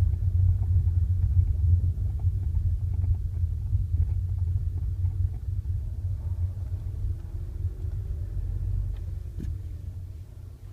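VW Tiguan driving, with a steady low road and suspension rumble and faint scattered knocks. The knocks are the front-left knock being checked. The rumble dies down near the end.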